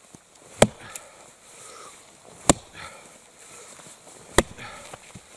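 An axe chopping into a birch log in the snow: three sharp strikes about two seconds apart, with a few smaller knocks between them.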